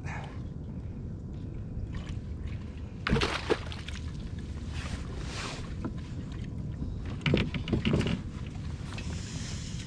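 A bonito thrashing and splashing at the water's surface beside a kayak as it is held and lifted out, in two short bouts about three and seven seconds in, over steady wind and water noise.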